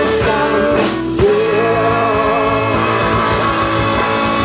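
Live rock band with saxophone, trumpet, electric guitar, keyboard, bass and drums playing the closing bars of a song. About a second in, a long held note with a wavering vibrato sounds over the band.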